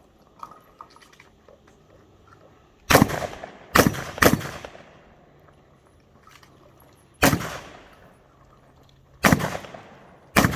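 Six shotgun shots, each with a short echoing tail: three in quick succession about three seconds in, then three more spaced one to two seconds apart.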